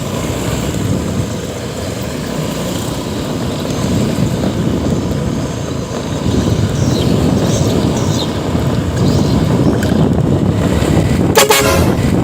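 Vehicle on the move: steady road and engine rumble with wind noise, growing a little louder, and a brief loud noise near the end.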